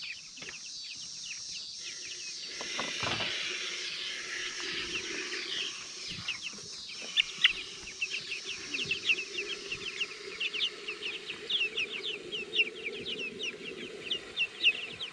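A flock of young meat chickens (broilers) peeping and chirping, with many short high calls a second that grow busier after the first few seconds. A few knocks sound about three seconds in.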